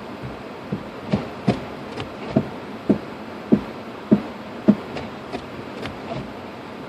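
Steady road and cabin noise inside a moving car, with a series of short knocks, roughly two a second, that grow louder towards the middle and then fade.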